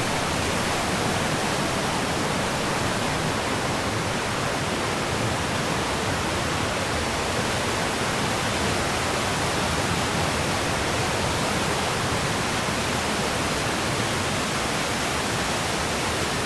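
Steady rushing of flowing water, a stream or small waterfall running without let-up.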